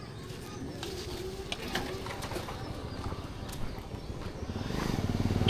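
A dove cooing in low, wavering calls. Near the end a motorcycle engine comes closer and grows louder.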